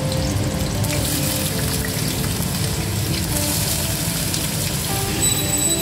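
Diced potatoes frying in hot oil in a kadai, a steady sizzle.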